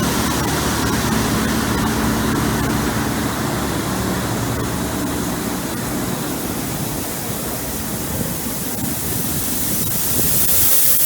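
Truck engine running under a steady rushing noise, which grows louder and brighter near the end.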